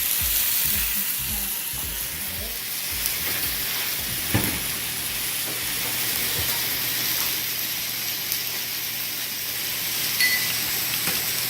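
Rib-eye steak sizzling steadily in butter and oil in a hot grill pan, with a single sharp knock about four seconds in.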